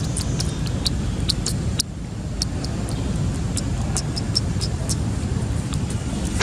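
Wind rumbling steadily on the microphone, with many short sharp clicks scattered through it.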